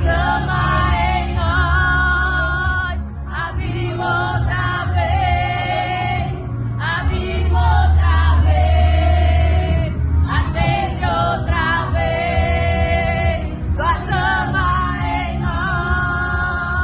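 Brazilian gospel song: a group of voices sings held, wavering notes in phrases over a band with a strong bass.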